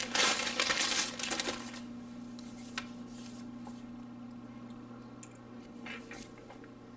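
Plastic packaging rustling and crinkling as a hand pulls a hatchet out of a cardboard box. The rustle is loudest for the first second or two, then gives way to a few faint clicks and handling sounds.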